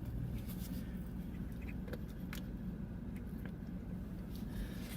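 Steady low rumble of idling truck engines, with a few faint clicks and taps over it.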